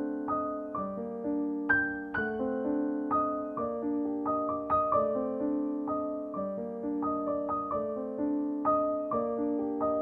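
Solo piano background music: a gentle melody of single struck notes, each fading as the next one comes, at an even, unhurried pace.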